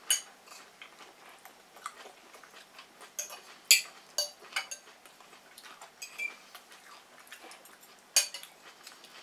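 Forks clinking against ceramic bowls and plates while people eat, in scattered sharp clinks; the loudest come a little under four seconds in and about eight seconds in.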